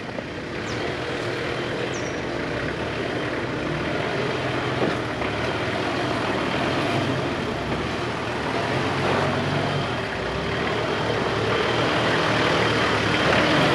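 Four-wheel-drive engine running at low revs as it crawls over a rough, steep track, with a noisy rumble that grows slowly louder.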